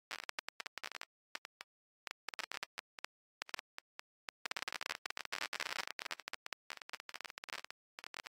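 Faint crackling static and clicks in short, irregular bursts, cutting in and out with dead gaps between them. The densest crackling comes about halfway through.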